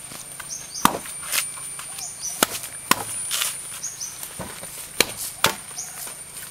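Machete chopping into a coconut's fibrous husk: about six sharp chops, mostly in pairs about half a second apart.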